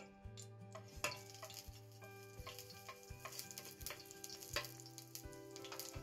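Fennel seeds sizzling in hot oil in a stainless steel pot, with many sharp pops. The sizzle starts about a second in, as the seeds hit the oil.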